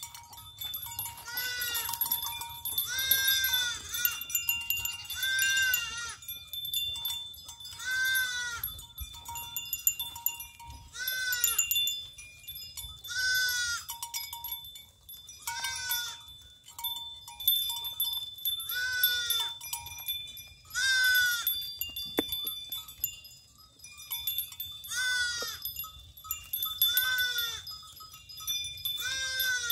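Goats bleating again and again, a long wavering bleat about every two seconds, with faint steady ringing tones underneath.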